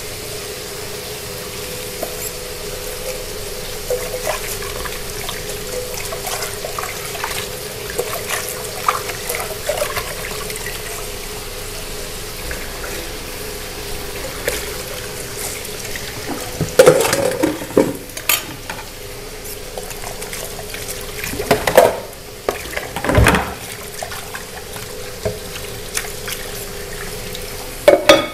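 Tap water running into a kitchen sink as dishes are washed, with light clinks and, a few times, loud clattering knocks of a metal bowl and utensils against the sink.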